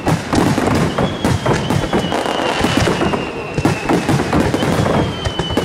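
Aerial fireworks display: continuous dense crackling and bursting shells, with a long descending whistle about a second in and another near the end.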